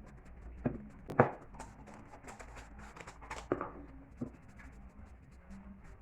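A few sharp knocks, the loudest about a second in, with light scratching and small ticks between them over a low steady hum: small pieces being handled and set down on a workbench.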